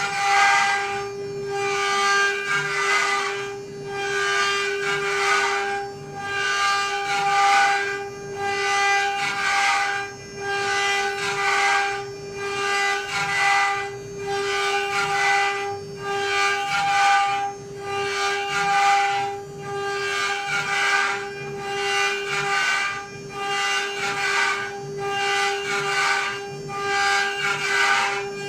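CNC router spindle running with a steady high whine while it cuts. The cutting noise swells and drops about every two seconds as the tool passes back and forth through the material.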